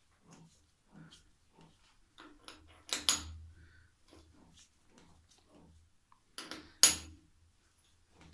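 Steel chuck key clanking in a lathe's three-jaw chuck: two sharp metallic clanks, about three and seven seconds in, as the jaws are loosened and tightened. Faint light ticks come between them as the chuck and workpiece are turned by hand.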